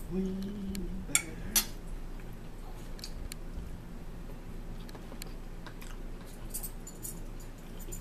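Metal fork and spoon clinking and scraping against a plate and a bowl while eating, with two sharp clinks about a second and a half in and lighter clicks later. A short low hum comes at the start.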